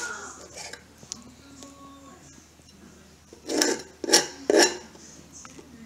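Blunt knife sawing through a flathead fillet to cut out the rib cage, scraping on a plastic cutting board. Light scrapes, then three louder strokes in quick succession about three and a half seconds in.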